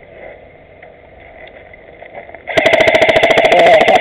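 Electric airsoft rifle firing a long full-auto burst: a loud, rapid, even rattle of shots over a steady motor whine, starting about two and a half seconds in.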